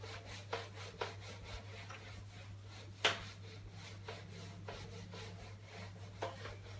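Whiteboard eraser rubbed back and forth across a whiteboard, wiping off marker writing in a string of short swishing strokes, one louder about three seconds in. A steady low hum runs underneath.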